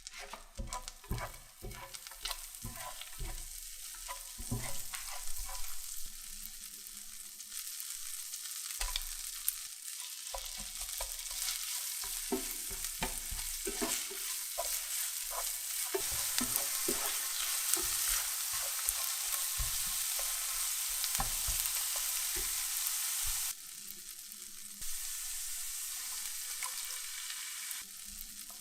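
Food sizzling as it fries in hot oil in a pan, with frequent clinks and scrapes of a utensil stirring it. The sizzle grows louder over the first half and drops briefly near the end before picking up again.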